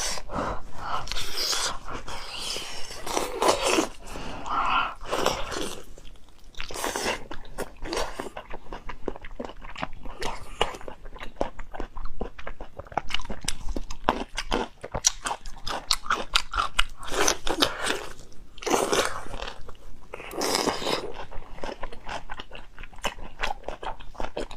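A person biting and chewing food close to the microphone: a steady string of wet clicks and smacks, with a louder bite every few seconds.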